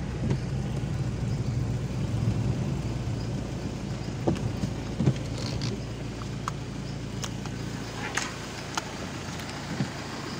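Car's engine and tyres heard from inside the cabin as it rolls slowly onto a bridge. The low rumble eases off over the second half as the car slows, and a few short knocks come through.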